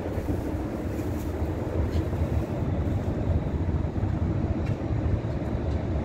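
Steady low rumble of vehicle noise, with no distinct events standing out.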